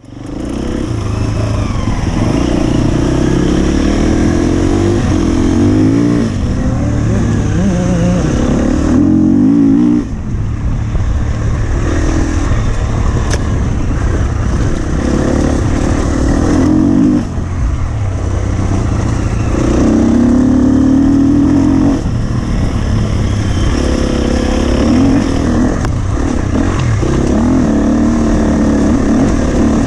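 2017 Husqvarna FE 250 four-stroke single-cylinder enduro motorcycle engine being ridden hard, its revs rising and falling continuously, with short drops in revs about ten, seventeen and twenty-two seconds in.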